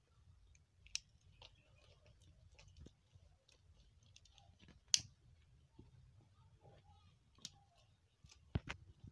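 Faint, scattered clicks and light taps from handling a plastic mat while its edges are worked into a handbag, over a low steady hum. The sharpest clicks come about a second in and about five seconds in, with two more close together near the end.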